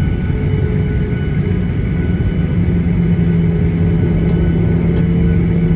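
Jet airliner heard from inside the cabin while taxiing: a steady low rumble with a thin engine whine over it. A low hum grows stronger about two and a half seconds in.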